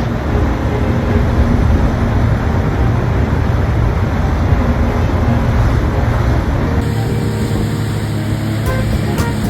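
Jet ski engine running steadily, with a change in the sound about seven seconds in.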